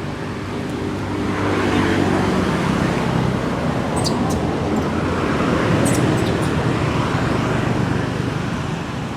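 Road traffic: motor vehicles driving past, the noise swelling twice, over a steady engine hum. A few short, sharp high ticks come around the middle.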